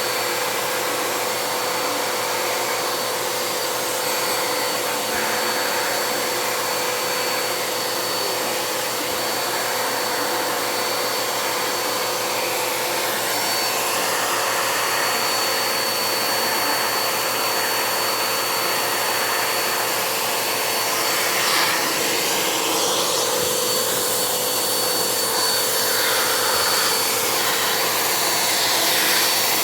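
Vacuum cleaner running steadily, its motor drone carrying a constant high whine, with small swells in the airflow hiss as it is pushed across the floor.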